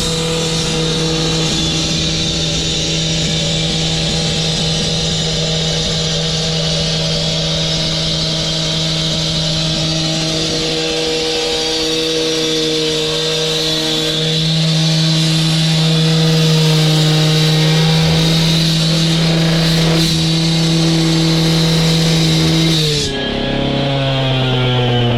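Gas-powered cut-off saw running flat out at high revs, with a loud cutting hiss, getting louder about halfway through. Near the end the cutting stops and the engine's revs fall away.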